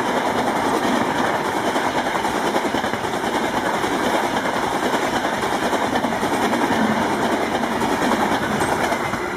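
Express train running through at speed: a steady rumble and rapid clatter of steel wheels on the rails.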